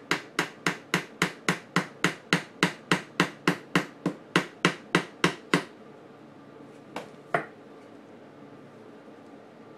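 Rapid, even hammer taps, about three or four a second, on a piece of wood held against the aluminium clutch cover of a Yamaha QT50 moped, working the stuck cover loose from its gasket. The tapping stops a little past halfway, and two more taps follow about a second and a half later.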